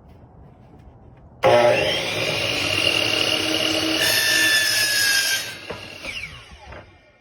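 Electric miter saw starting up suddenly about a second and a half in and cutting through wooden trim. It is then switched off, and the blade winds down with a falling whine near the end.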